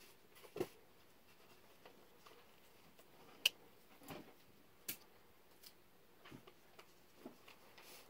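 Spring-assisted folding pocket knife handled in the hand: scattered faint clicks and taps, with one sharp click about three and a half seconds in and another a second or so later.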